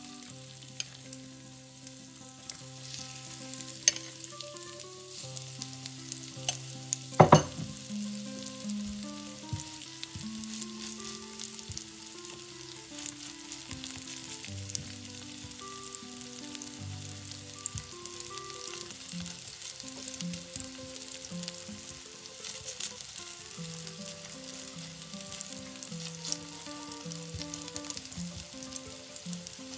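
Zucchini fritter batter frying in shallow oil in a nonstick pan: a steady sizzle, with small clicks and scrapes of a silicone spatula pressing the fritters flat. A single sharp knock stands out about seven seconds in.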